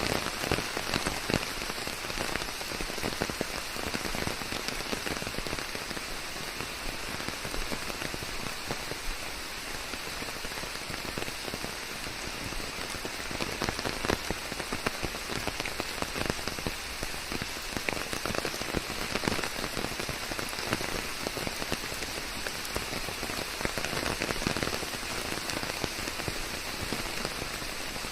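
Steady forest rain, a dense patter of many small drops falling without pause, blended with a white-noise layer.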